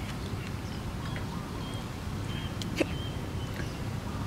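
Steady low wind rumble on the microphone, with a few faint short high chirps in the middle. A sharp click just under three seconds in is the metal spoon against the metal tray of noodles.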